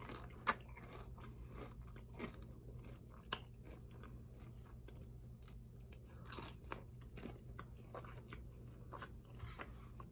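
Close-up chewing and crunching of tortilla-chip nachos: irregular crisp crunches and bites, with a louder bout of crunching a little past the middle.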